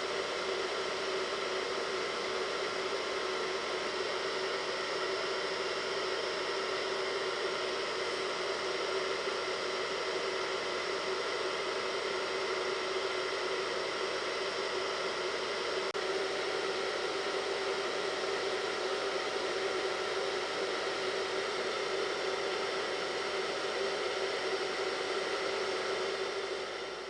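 Hair dryer blowing steadily: a constant rushing hiss with a steady motor hum, fading out near the end.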